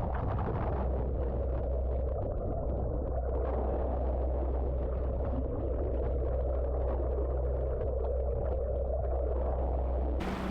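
Onboard noise of a racing yacht under way: a steady, muffled low hum and rumble of the hull moving through the water. Just before the end it switches abruptly to a brighter hiss of water and wind over a steady hum.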